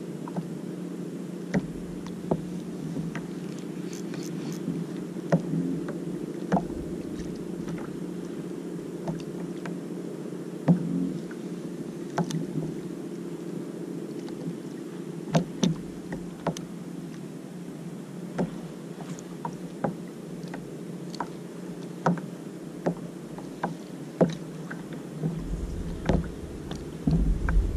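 Small water movements against a plastic kayak hull under a steady muffled drone, with scattered sharp clicks and taps at irregular intervals. A low rumble rises near the end.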